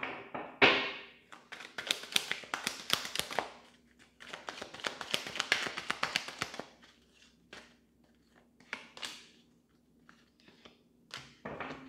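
A tarot deck being shuffled by hand: two runs of rapid papery card flicks, then a few separate light taps as cards are drawn and laid on the cloth.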